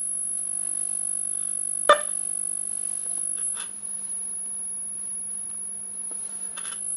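Radialva Groom valve radio's loudspeaker giving a steady, very high-pitched whistle over a low hum: the set is oscillating, which the restorer suspects comes from wrongly phased negative feedback taken off the output transformer's secondary. A sharp crackle comes about two seconds in, and fainter crackles follow later.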